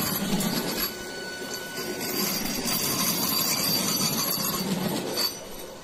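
Train 18 electric trainset rolling slowly past at close range: a steady noise of wheels running on the rails, with faint high-pitched tones over it. It fades near the end.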